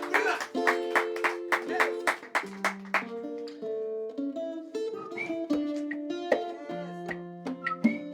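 Live music on a plucked string instrument playing chords. For the first three seconds it is struck sharply about twice a second, then it settles into held notes with lighter, sparser plucks.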